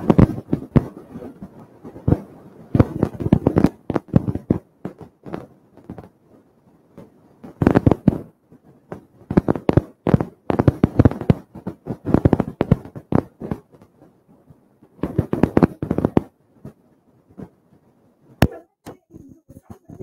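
A woman's voice speaking loudly in short phrases with pauses, harshly distorted and crackling as if overloading the microphone.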